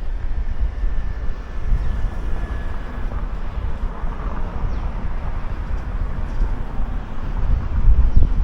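Low, gusty rumble of wind buffeting a moving microphone over steady outdoor noise. A faint vehicle passes, with a thin steady whine that fades about three seconds in.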